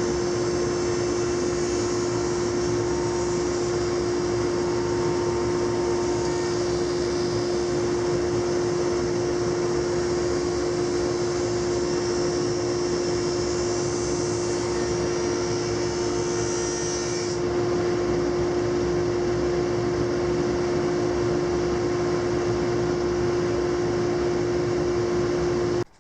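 Laguna 25-inch planer with a ShearTec II spiral cutterhead running, planing eastern red cedar: a loud, steady hum with a high hiss that drops away about seventeen seconds in. The sound cuts off suddenly at the end.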